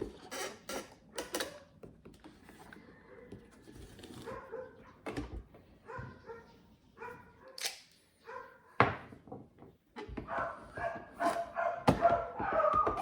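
Plastic clicks and knocks from the coffee maker's bottom cover being handled and pried at its clips. A dog yips and whines, louder near the end.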